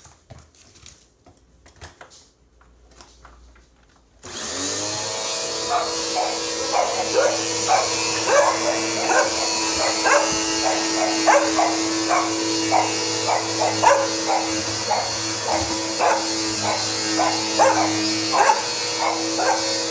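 Bissell 1831 CleanView bagless upright vacuum switched on about four seconds in, then running steadily with a loud hum and whine, really loud. Over it come repeated short, high yips about twice a second.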